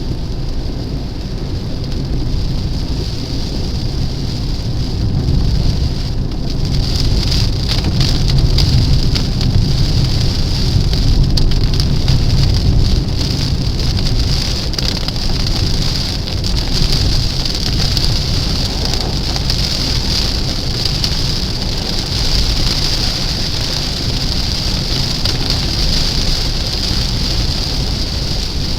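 Rain pattering on a car's windshield and roof over a steady low rumble from the moving car. The rain grows heavier about seven seconds in.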